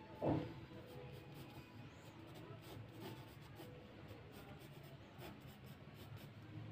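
Faber-Castell graphite pencil scratching light sketch lines on paper in short, faint strokes. A single dull thump near the start is the loudest sound.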